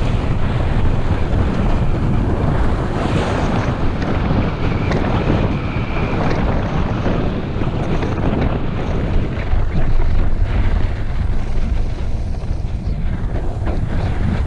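Loud, steady wind rushing over the microphone of a camera carried at speed down a groomed ski slope, mixed with the hiss of sliding over packed snow.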